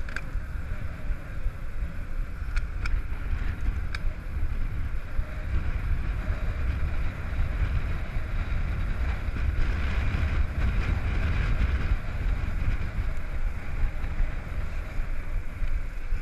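Wind buffeting the microphone of a camera mounted on a mountain bike rolling along asphalt, with the hiss of the ride underneath. A few sharp clicks come about two and a half to four seconds in.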